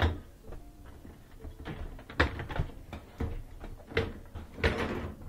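A dishwasher's wire rack and plastic utensil basket being handled and pulled out: a few short knocks and rattles, starting about two seconds in and coming again near the end.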